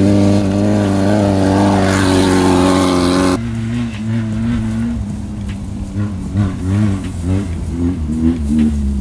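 Off-road race vehicle engine running hard at steady revs, then about a third of the way in the sound changes abruptly to a quieter engine whose revs rise and fall repeatedly.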